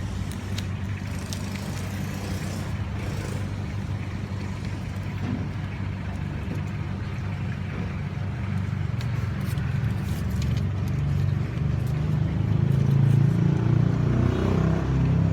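Car engine running steadily at idle, with a low hum that grows louder over the last few seconds.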